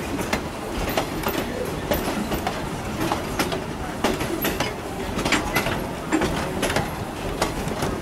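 A train rolling along at speed, heard from aboard: a steady rumble with the wheels clicking sharply and irregularly over the rail joints.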